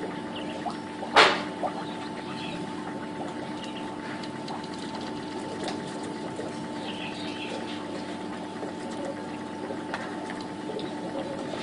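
Steady mechanical hum over faint pond water sounds, with light splashes and faint high chirps scattered through, and one sharp knock about a second in.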